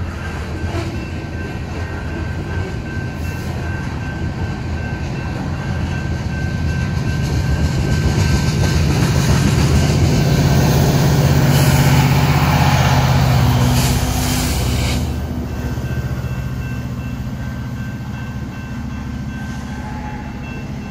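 Freight train of loaded tank cars rolling past a grade crossing, wheels running on the rails. The rear distributed-power locomotive, an EMD SD70ACe with a two-stroke diesel engine, goes by with its engine running, loudest about twelve seconds in. The sound then eases off as the train clears.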